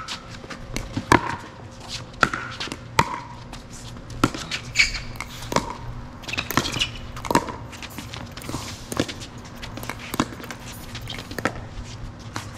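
Pickleball rally: paddles popping against a hollow plastic pickleball in a fast exchange, a sharp hit roughly every second.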